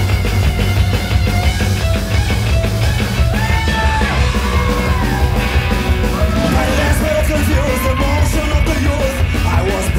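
Loud rock music with a heavy, steady bass, and a singing voice coming in over it about two seconds in.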